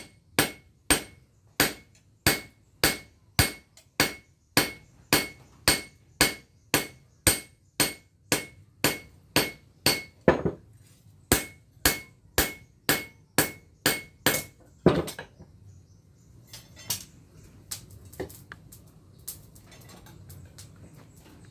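Hand hammer striking a red-hot blade forged from bearing steel on a small steel anvil, a steady run of ringing blows about two a second. The hammering stops about fifteen seconds in, followed by a few light clinks and knocks of tongs and steel being handled.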